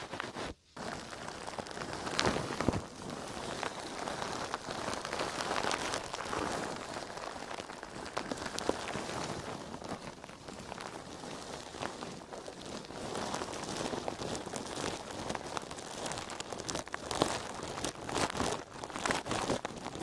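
A crisp, crackly dry sponge being handled close to the microphone, giving a dense run of fine crackles.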